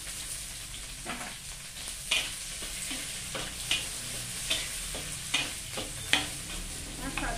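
Chopped spices and aromatics sizzling in a wok, stirred with a metal spatula that scrapes and clinks against the pan about once a second.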